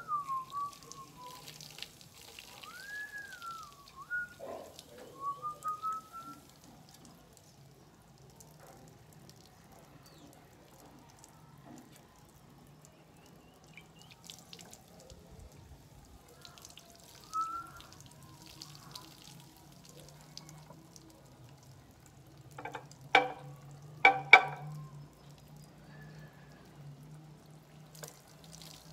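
Liquid dripping and trickling slowly from a bottle into a glass. A few sharp clinks come about two-thirds of the way through and are the loudest sounds. Birds whistle in the first few seconds, over a steady low hum.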